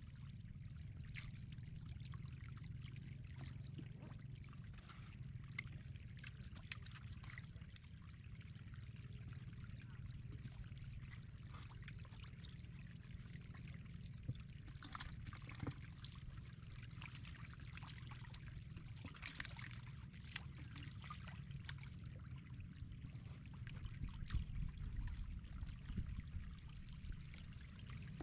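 Shallow floodwater running steadily across a dirt road, with scattered small splashes from catfish thrashing in it. A low rumble grows louder near the end.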